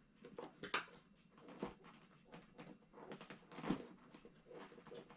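Faint rustling and small plastic clicks of a zip tie being worked by hand through the cover and foam of a car seat cushion, with a couple of slightly louder ticks.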